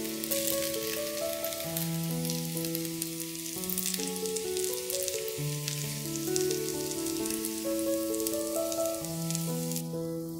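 Food frying in a hot pan, a dense crackling sizzle that cuts off near the end, under background music with held keyboard-like notes.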